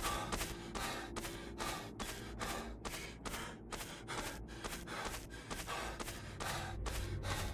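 Steady footsteps crunching on the forest floor, about two to three steps a second at a walking pace.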